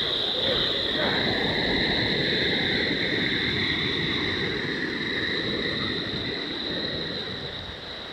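Muddy floodwater rushing down a swollen dry riverbed, a steady wash of noise with a steady high-pitched whine over it. The rushing grows fainter near the end.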